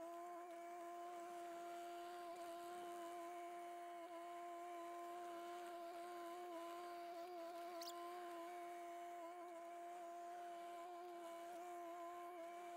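Kubota KX040 mini excavator working, heard faintly as a steady machine whine with overtones and only slight wavers in pitch.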